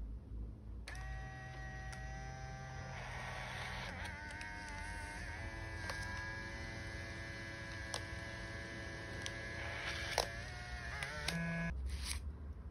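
Fujifilm Instax Share instant-film printer running its motor to print and push out a film print: a steady whirring whine that shifts pitch a few times, with small clicks. The motor stops about a second before the end.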